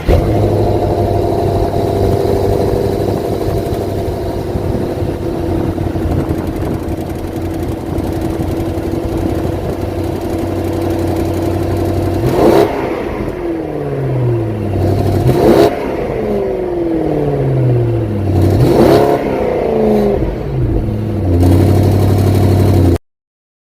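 2021 BMW M550i's twin-turbo V8 cold-starting: it catches with a loud flare and settles into a steady fast idle. About halfway through it is blipped several times, each rev sweeping up and falling back to idle. The sound stops abruptly near the end.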